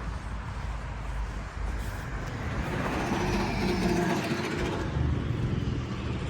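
A road vehicle's engine running close by over traffic noise, growing louder from about halfway through.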